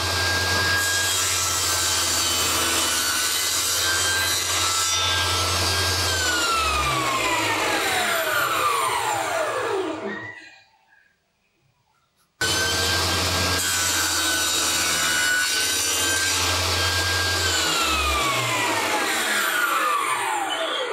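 Table saw cutting a small wooden workpiece on a crosscut sled, twice: the motor runs at full speed with a steady whine for a few seconds, is switched off and coasts down with a long falling whine. After a short silence it starts again abruptly about halfway through, runs for about five seconds and winds down once more near the end.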